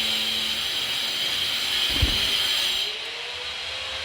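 A power tool runs steadily with a high whine, and there is one thump about halfway through.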